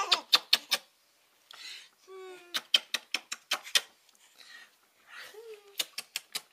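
Baby laughing while being tickled: three runs of quick, clicking laugh bursts, about six a second, with breathy gasps and short falling squeals between them.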